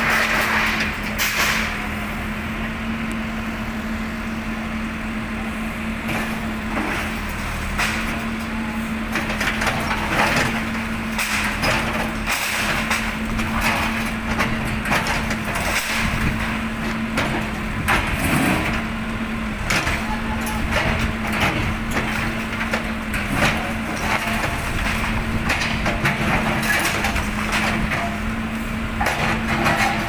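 A backhoe loader's engine runs steadily as its bucket breaks apart a building's concrete and wooden walls. Repeated cracking, splintering and crashing of falling debris run all through it.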